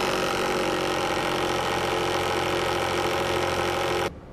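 Fisher Vortex-Genie 2 vortex mixer running at speed, shaking a PowerBead tube of soil and bead solution held flat in its holder: a steady motor hum that cuts off sharply about four seconds in.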